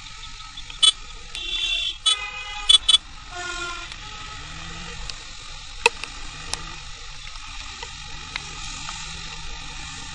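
Vehicle horns honking several times in close traffic, a mix of short beeps and a longer honk in the first few seconds. Under them runs the steady noise of riding a motorcycle along a wet road.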